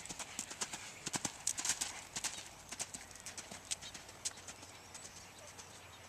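Hoofbeats of a black two-year-old Quarter Horse filly cantering on a lunge line over a sandy dirt pen floor: a quick, uneven run of thuds, loudest a second or two in and lighter after that.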